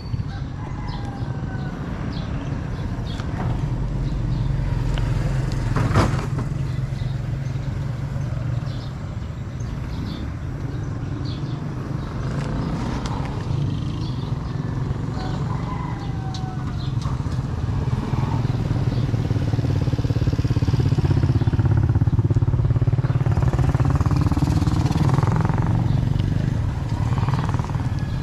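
A motor vehicle engine running steadily on the move, growing louder in the second half, with a sharp click about six seconds in.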